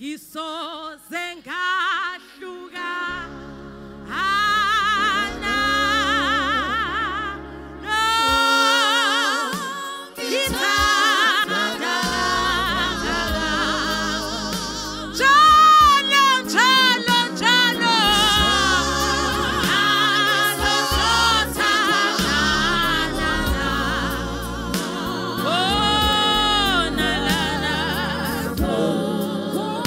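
A woman singing a gospel song into a microphone, her held notes wavering with vibrato, over low instrumental accompaniment that comes in about three seconds in.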